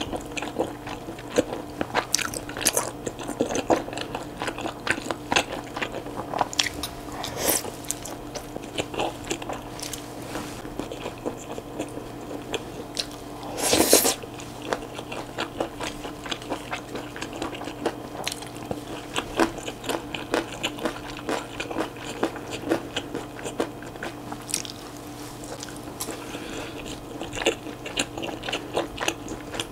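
Close-miked eating sounds: a person chewing and biting a mouthful of chewy Chinese glass noodles and beef brisket, a steady run of sharp, wet clicks. One louder sound lasting about half a second comes about halfway through.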